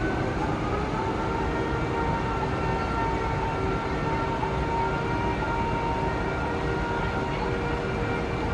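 Steady mechanical drone with several held whining tones over a low rumble, unbroken throughout.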